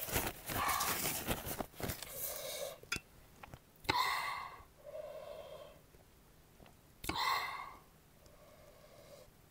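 A person breathing hard through the mouth: sharp gasping breaths, about four and seven seconds in, each followed by a softer blown-out breath. It is the panting of someone whose mouth and throat are burning from chilli-hot food.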